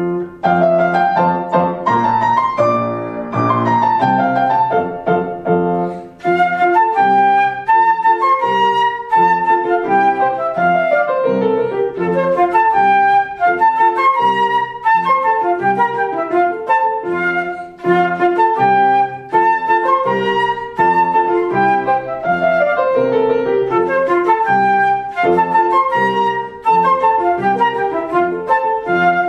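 Concert flute and grand piano playing a classical piece together: the flute carries a quick melody of short, separate notes over the piano accompaniment, with a few runs sweeping downward.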